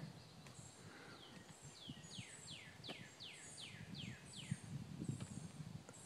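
Faint birdsong: a songbird sings a run of about eight quick downslurred whistles, with thin high notes from a second bird. Soft footsteps on the paved trail sound underneath.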